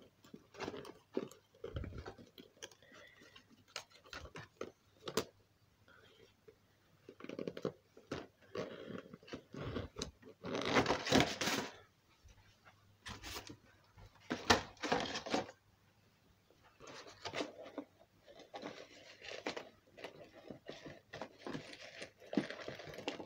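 Rustling, rubbing and scattered clicks of things being handled and rummaged through while the phone is moved around, the loudest stretch a little under halfway through.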